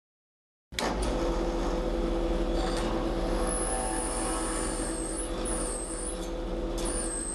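Drill press running at speed as a multi-purpose drill bit, lubricated with oil, bores through a hardened steel file; the sound starts abruptly under a second in with a steady motor hum. From about three seconds in, a high, wavering squeal from the bit cutting the steel comes and goes several times.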